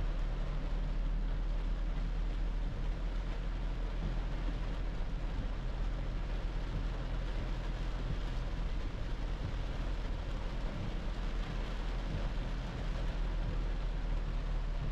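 Steady engine and road noise inside the cab of a 2010 Toyota Hilux pickup driving in heavy rain, with rain hissing on the windscreen and body.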